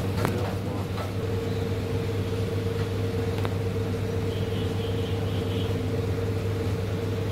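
Workshop machinery running with a steady hum, with a few short clicks.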